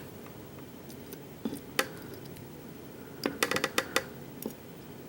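Small metal lock pins and tools clicking and clinking as key pins are taken out of a pin tumbler lock: two clicks about one and a half seconds in, then a quick run of clicks around three and a half seconds, and one more near the end.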